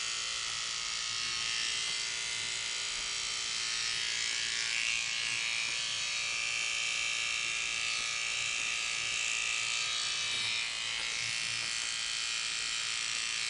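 Corded electric hair clippers running with a steady buzz as they shave a head down to the scalp, the buzz growing brighter for a few seconds in the middle.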